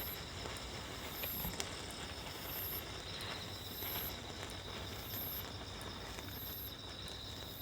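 Insects, crickets by the sound, trilling steadily with a high chirp repeating about once a second, while a senko hanabi sparkler's fireball gives off a few faint, scattered crackling pops before it goes out.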